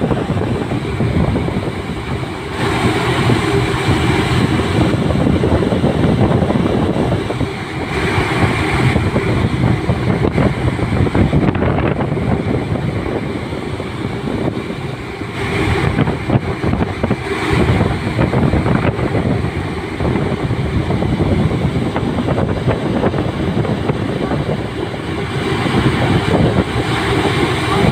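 Steady rumble and rush of a passenger ship under way at sea, with wind buffeting the microphone in gusts every few seconds.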